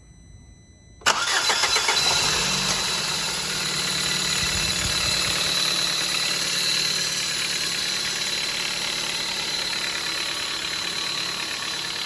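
A 2011 Ford Focus's 1.6 Sigma engine is started cold about a second in and settles to a steady idle. Over the idle runs a steady high-pitched scraping noise (arranhado). The owner says it goes away only when the clutch pedal is pressed and takes it for a clutch problem.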